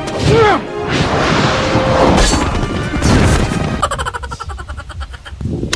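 Loud inserted music cue mixed with crash and whack sound effects, with a short gliding tone about half a second in.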